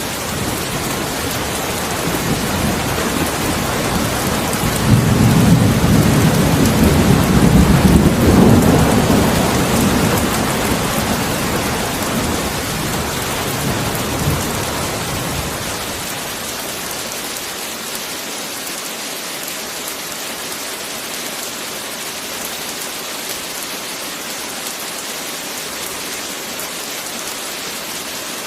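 Heavy rain falling steadily, with a long roll of thunder that builds a couple of seconds in, peaks, and rumbles away about halfway through.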